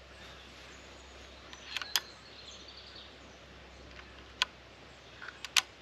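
Quiet outdoor ambience with a few sharp clicks from an air rifle being handled on its tripod, two of them close together near the end. A bird chirps faintly.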